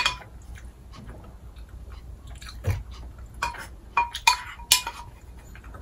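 Wooden spoon knocking and scraping against a ceramic bowl, with soft chewing between. There is one sharp clink at the start, another about halfway, and a quick run of four near the end, several of them leaving a short ring from the bowl.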